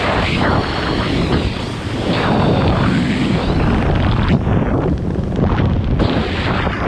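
Wind rushing over a skydiver's helmet-mounted camera microphone while the skydiver flies under an open parachute canopy, a loud rushing noise that swells and eases in uneven gusts.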